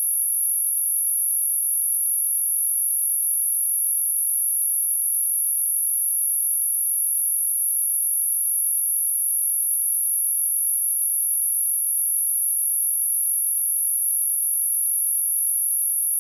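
A steady, very high-pitched hiss with nothing in the low or middle range and no change in level.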